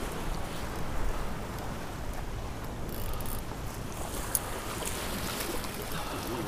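Wind buffeting the microphone as a steady low rumble, with seawater washing against jetty rocks; a single short sharp tick a little past halfway through.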